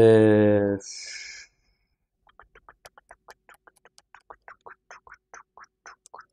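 A man's loud held hum at one steady low pitch for about a second at the start, then a short breathy hiss. After that comes a long run of faint, short clicks or taps, about four a second.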